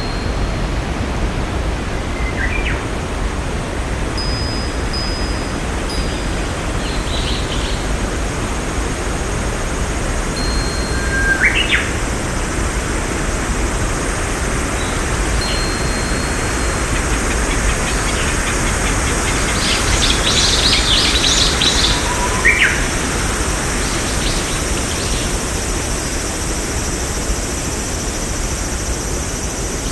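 Birds calling over a steady rushing background noise: scattered short whistles and quick rising chirps, with a busier run of chirping about twenty seconds in.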